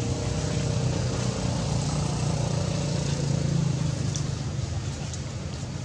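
Steady low mechanical hum of a running motor, with a few faint high ticks.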